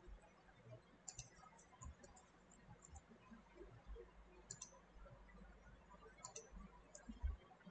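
Faint clicks of a computer mouse and keyboard, a handful of separate clicks with quiet room tone between, and a soft low thump near the end.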